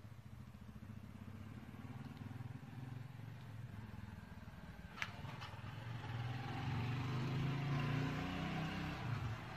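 A low vehicle-engine rumble that grows steadily louder, loudest about three-quarters of the way through, with a single sharp click about halfway.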